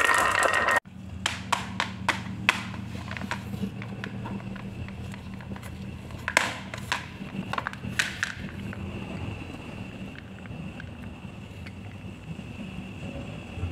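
Glass marbles rattling down a wooden pegboard, cut off suddenly under a second in. Then a pink plastic shell-shaped case is handled and opened, giving a scatter of sharp plastic clicks and taps over a steady low hum.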